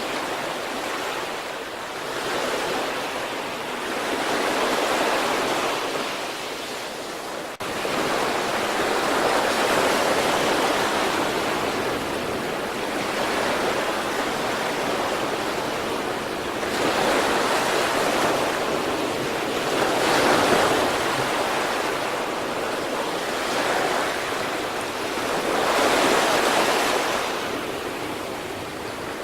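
Sea waves breaking and washing in, a rushing hiss that swells and falls back every few seconds.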